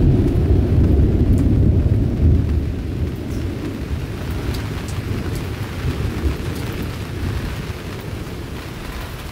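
Thunder rolling after a lightning flash: a deep rumble, loud for the first couple of seconds, then slowly dying away.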